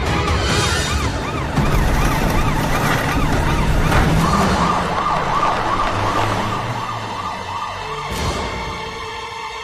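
Emergency-vehicle siren yelping in a fast, repeating up-and-down sweep over a low rumble. The sweep quickens about halfway through and fades out near the end.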